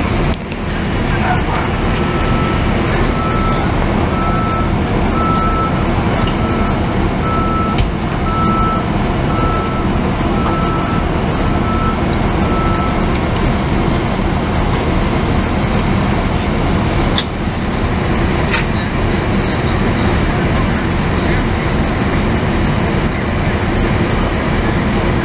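Fire truck engine running steadily, with a reversing beeper sounding a run of evenly spaced high beeps that starts a couple of seconds in and stops about halfway through.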